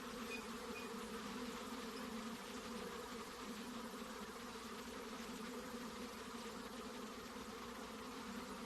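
Many honey bees buzzing together: a steady, unbroken hum with no breaks or swells.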